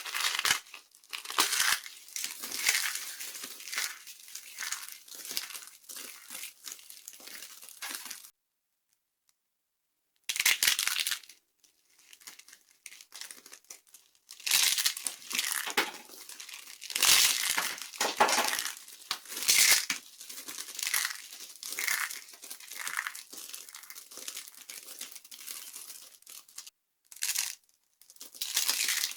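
Dry soap being crushed and crumbled, a dense crackling crunch. It comes in several spells, with silent gaps of a few seconds about a third of the way in and a short break near the end.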